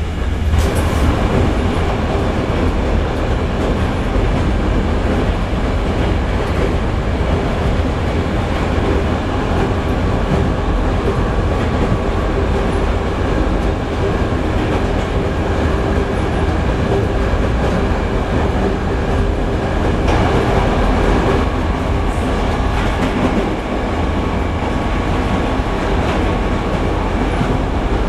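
Passenger train running along the track, heard from inside a coach: a steady rumble of wheels on rail.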